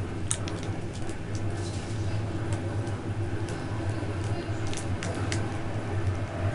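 Passenger coach running at speed, heard from inside the compartment: a steady low rumble with scattered sharp clicks and rattles from the car.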